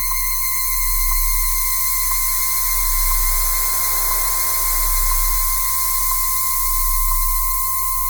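Synthesized horror ambience: a deep drone that slowly swells and fades, under several steady high-pitched tones, with a faint tick about once a second.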